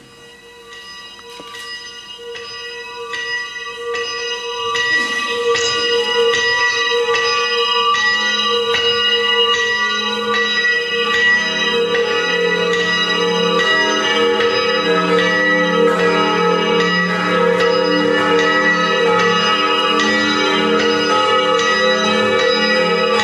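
Church bells ringing, struck about twice a second, the strokes overlapping in a ringing wash. The sound swells in over the first few seconds and then holds steady.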